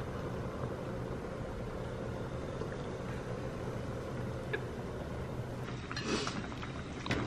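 Hot pot broth boiling in a stainless pot on a tabletop cooker: a steady bubbling hiss over a low hum, with a light click near the end.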